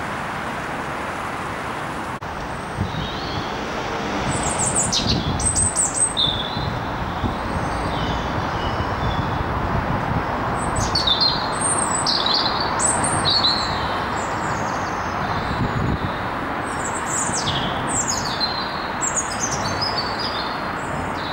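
Small birds chirping and calling again and again, short high notes that sweep downward, starting about four seconds in, over a steady rushing background noise.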